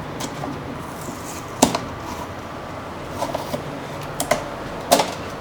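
Scattered sharp clicks and taps of small parts being handled, the loudest about a second and a half in and again near the end, with a few lighter ticks between.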